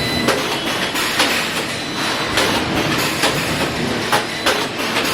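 Robotic spot-welding cell at work: the weld guns clamp and fire in an irregular series of sharp clacks, about two a second, over dense steady machine noise.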